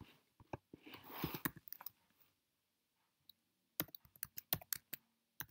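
Computer keyboard keys and mouse clicks: scattered sharp clicks, with a quick run of keystrokes near the middle as digits are typed into a search box. A short soft hiss about a second in.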